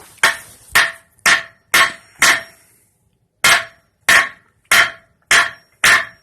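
A hammer striking a nail into a wooden board, ten sharp blows in two runs of five about half a second apart, with a pause of about a second between the runs. Each blow gives a brief metallic ring.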